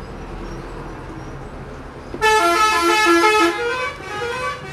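A vehicle horn sounds about two seconds in, a multi-tone horn stepping through several pitches for about a second and a half, over a low steady rumble.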